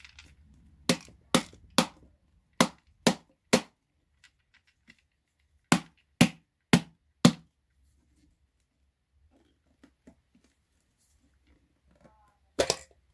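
Sharp knocks on a Sony center-channel speaker cabinet whose screws are already out, struck to work the enclosure apart. They come in groups of three, three and four, about two a second, with quiet gaps between, and two more near the end.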